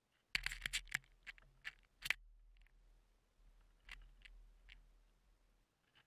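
Sharp knocks and scratching of birds pecking at seed on a snowy wooden rail close to the camera. There is a quick cluster of clicks in the first two seconds and a few more about four seconds in, over a low rumble.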